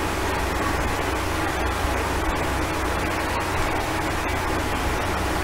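Steady background hiss with a low hum and no distinct events.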